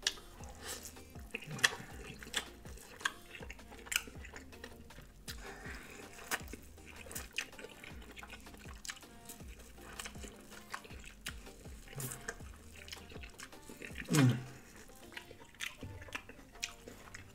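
Close-miked wet chewing and mouth sounds of a person eating buttered corn on the cob: scattered lip smacks and sticky clicks, with a short hummed 'mm' falling in pitch about fourteen seconds in.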